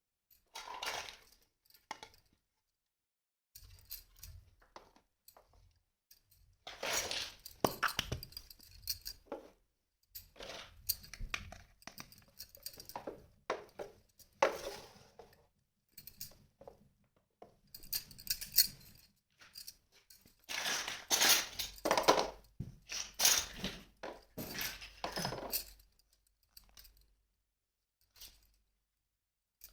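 Pieces of a toy kitchen set being handled and unpacked: irregular light clinks, knocks and rustles of small dishes and utensils being picked up and set down, with short pauses between bouts.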